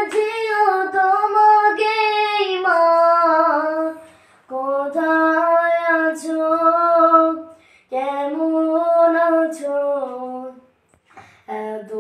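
A boy singing a Bengali gojol (Islamic devotional song) unaccompanied, in long drawn-out phrases with short breaks for breath between them.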